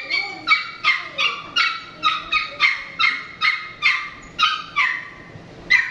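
Small dog yipping over and over, about three high-pitched yips a second, with a short pause near the end.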